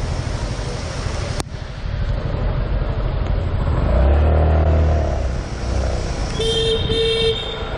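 Motor scooter riding in traffic: engine running under steady wind and road noise, with a sharp click a little over a second in and the engine note swelling louder around four seconds in. Near the end a horn gives two short beeps.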